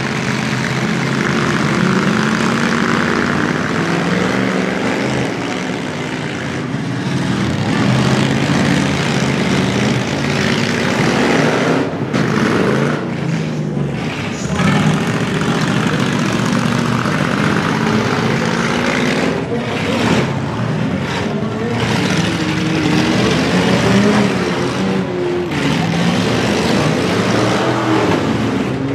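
Several demolition derby trucks' engines revving hard and unevenly, their pitch rising and falling as the vehicles push and ram one another.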